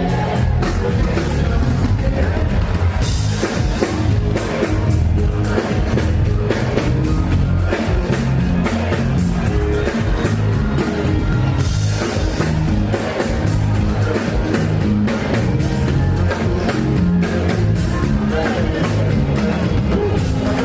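Live Afrobeats concert music over a large PA: a male singer with a band, steady drums and heavy bass, played loud and without a break.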